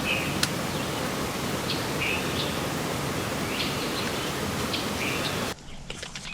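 Small songbirds chirping in short calls over a steady hiss of background noise; the hiss drops away abruptly about five and a half seconds in.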